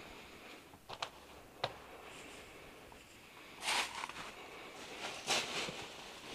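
New RV awning fabric sliding and rustling as it is pulled along the camper's awning rail: two swishes about a second and a half apart in the second half, after two light clicks.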